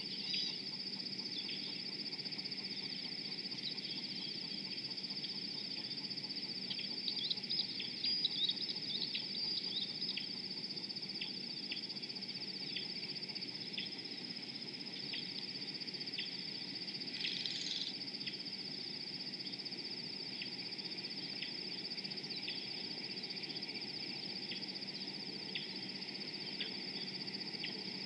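A steady high-pitched insect trill carries on throughout, with short bird chirps scattered over it, busiest from about seven to ten seconds in. A brief burst of calls comes about seventeen seconds in, over a low steady rush.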